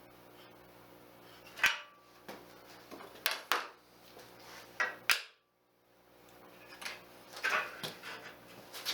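Handling of a square and a torpedo level against a 3D printer's frame: a string of sharp clicks and light metallic clinks, about eight in all, with a short silent gap just past the middle.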